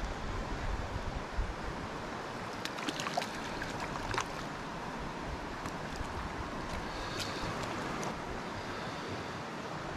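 A mountain creek running over rocks, a steady rushing of water, with a few short splashes about three to four seconds in as a brook trout is brought through the shallows.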